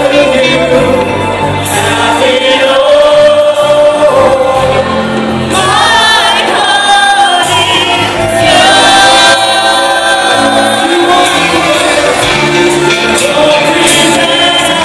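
Live band playing a Christian gospel song loudly: a group of singers on microphones over drums and a horn section of trumpet, trombone and saxophone.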